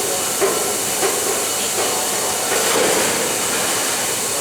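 Grain pouring out of railway hopper wagons into an unloading pit, a steady loud hiss with soft irregular knocks.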